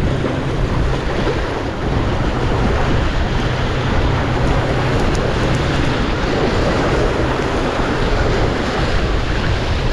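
Strong wind buffeting the microphone, a steady low rumble, over the wash of sea water at a rock jetty.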